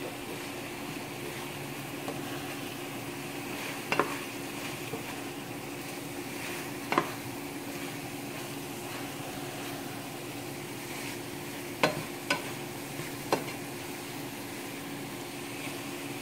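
Chicken wings in sauce frying and sizzling steadily in a pan, over a steady low hum. Tongs clack against the pan five times as the wings are turned, twice close together about twelve seconds in.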